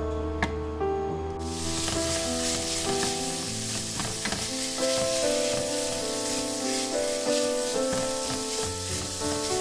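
Diced Cantonese sausage and minced pork sizzling as they stir-fry in a hot nonstick pan, stirred with a wooden spatula. The sizzling starts suddenly about a second and a half in and then runs on steadily.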